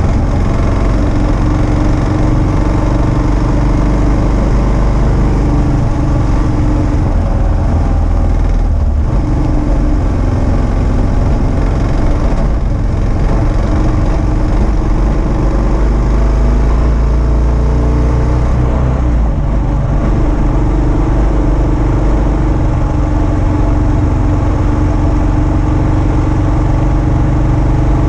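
Kawasaki KLR650's single-cylinder engine running steadily as the motorcycle rides along a gravel road, its note dipping and changing briefly a few times.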